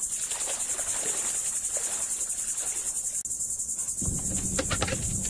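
A steady, high, fast-pulsing chorus of insects. About four seconds in, a low rumble joins it from the skiff's outboard motor idling.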